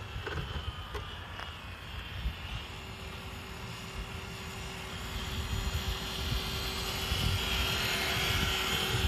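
Steady whine of small electric motors over a continuous outdoor hum, growing louder through the second half.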